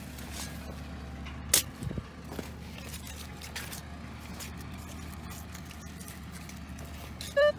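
A steady low engine hum of a tractor ploughing the field, with one sharp click about one and a half seconds in and a few soft knocks just after. Right at the end a Minelab metal detector gives the first of its pitched beeps over the dug hole.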